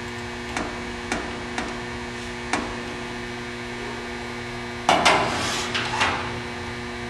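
Metal cotter key being fitted through the pin of a clamp ring's lever mechanism: four light clicks, then a louder run of clicks and rattling about five seconds in. A steady electrical hum runs underneath.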